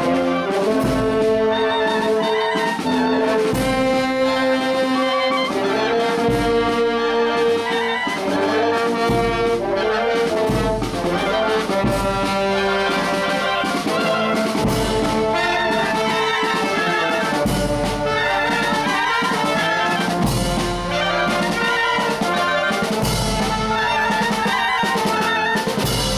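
Marching wind band playing a tune in full: trumpets and other brass with clarinets carrying the melody, and drums underneath.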